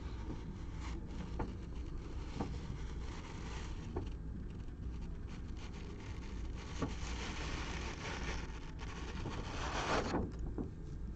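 Handling noise: light clicks and scratchy rustling and scraping, loudest near the end, over a steady low hum.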